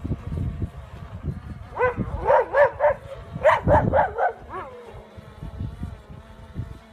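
Dogs barking at a drone flying low overhead: a quick run of short, fairly high barks, about eight in all, starting about two seconds in and stopping shortly before five seconds.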